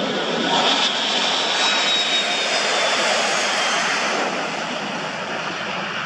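Dassault Falcon 7X business jet's three Pratt & Whitney PW307A turbofans at takeoff power, a steady jet rush with a faint high whine that falls slightly in pitch as the aircraft goes by, easing off a little toward the end.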